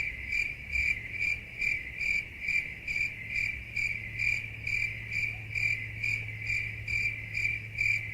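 Cricket chirping sound effect: an even chirp repeating a bit more than twice a second, over a low steady hum. It cuts off abruptly near the end.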